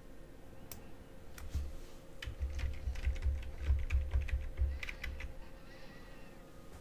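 Typing on a computer keyboard: a run of irregular keystroke clicks for about four seconds, with low thuds under them, dying away near the end.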